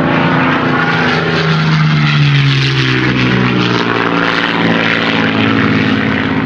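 Loud, steady, aircraft-like droning noise from the intro soundtrack, over held low tones that shift pitch a couple of times.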